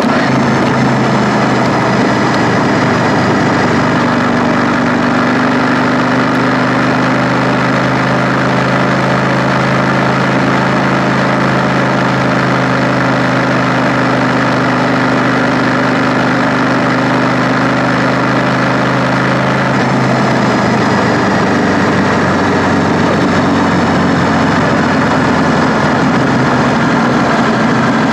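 KTM 890 Duke R parallel-twin engine running at a steady, low pitch while the bike rolls along, its note shifting about two-thirds of the way through, under a constant rushing noise.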